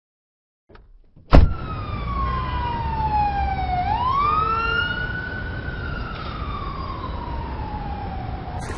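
Siren wailing over a low rumble: after a sharp click, one tone falls in pitch, sweeps back up about three seconds in, then slowly falls again.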